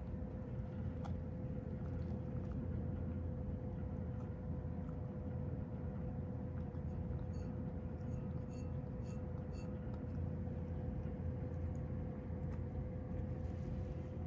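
Cat licking an emptied food bowl clean: quick faint lapping ticks, clearest around the middle, and a few small clicks against the bowl, over a steady low rumble and hum.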